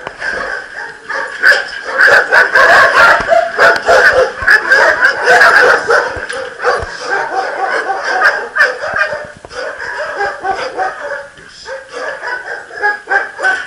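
Several kennelled dogs barking and yelping at once, an overlapping din that is loudest from about one to six seconds in, then carries on less loudly.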